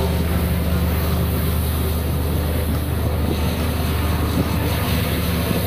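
Ship's engine running with a steady low hum under a broad rushing hiss like wind and water.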